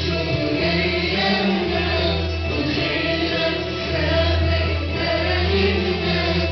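A congregation singing a hymn together in unison over sustained low accompaniment notes, without a pause.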